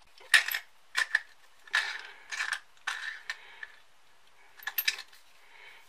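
Light metallic clicks and short scraping rasps from the small metal parts of a salt grinder's grinding mechanism being fitted and worked during assembly, with a quieter stretch near the end.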